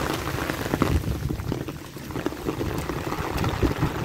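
Rain falling on a paved street, with stormwater runoff flowing along the gutter and many small irregular splashes.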